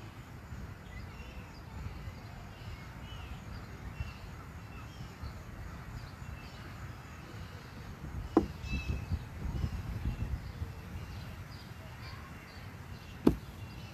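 Two sharp knocks, about five seconds apart, of chess pieces set down on the board on a wooden picnic table, over wind rumbling on the microphone and birds chirping now and then.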